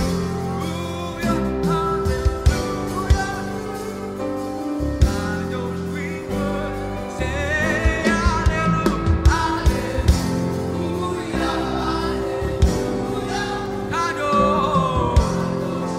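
Live gospel praise music: singing over a full band with a steady drum beat.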